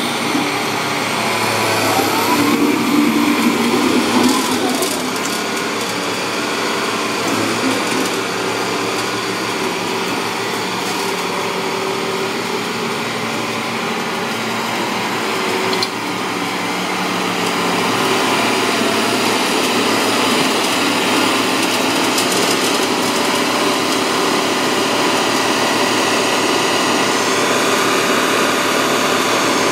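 Caterpillar CS-563C vibratory soil compactor's diesel engine running steadily, getting a little louder about halfway through. The machine's vibratory system is not working.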